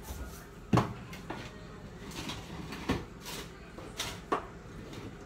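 Someone rummaging in a kitchen, searching for a lemon: scattered sharp knocks and clacks of cupboard doors and items being moved about, about five of them over a few seconds.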